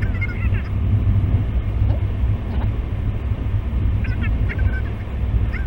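A road vehicle driving, a steady low road-and-engine rumble, with the audio sped up to double speed. Short groups of high chirps cut in at the start and twice more near the end.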